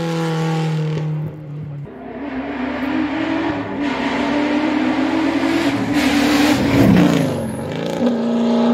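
Hill-climb race car engines running hard at high revs up the course; about seven seconds in a car passes close and its engine pitch drops sharply as it goes by. The engine sound jumps abruptly about two seconds in and again near the end.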